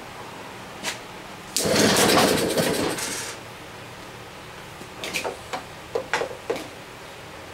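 Antique two-stroke engine, choke on, cranked by a pull of the wrap-around starter rope: it turns over loudly for about a second and a half and does not keep running. A few light clicks and knocks follow as the rope is wound back onto the pulley.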